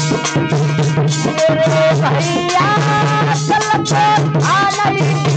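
Indian devotional folk song (jas) music: a melodic lead that bends and steps in pitch over a steady hand-drum beat.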